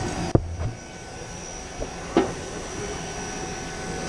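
Steady machinery hum with a few faint steady tones, broken by a sharp knock about a third of a second in and a lighter knock around two seconds in.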